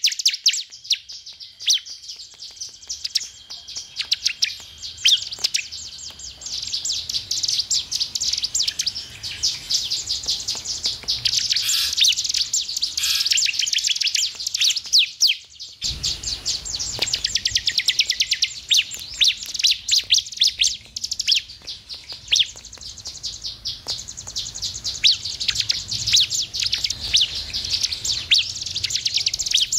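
Bar-winged prinia (ciblek) song: rapid, high chattering trills of short repeated notes, continuing in fast runs with a brief break about sixteen seconds in.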